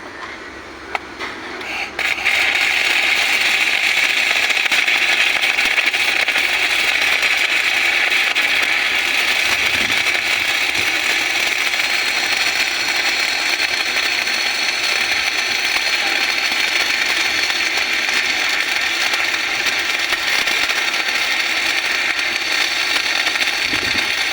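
MIG welding arc crackling steadily, starting about two seconds in after a few short clicks.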